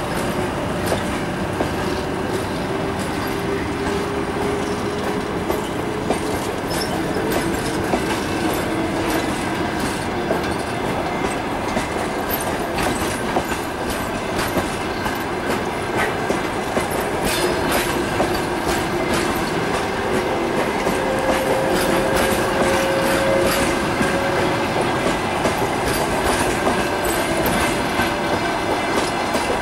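Passenger coaches of a departing train rolling past, their wheels clicking over the rail joints, with thin, slowly drifting squeal tones from the wheels. The sound grows slightly louder in the second half.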